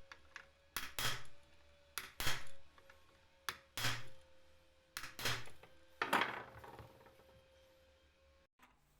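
A series of sharp clinking knocks, about one a second, each with a short ring. They stop about seven seconds in.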